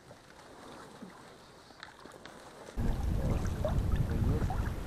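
Faint rustling and small clicks of reeds brushing against an inflatable boat, then, about three seconds in, a sudden loud, steady rumble of wind buffeting the microphone over open water.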